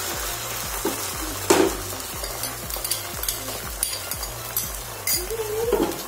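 Beaten egg with chopped onion and green chilli sizzling steadily as it fries in hot oil in a nonstick pan, with a few sharp clicks.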